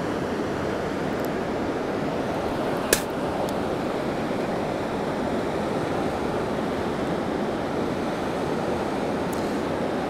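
Steady rushing of a fast-flowing river, with a single sharp click about three seconds in.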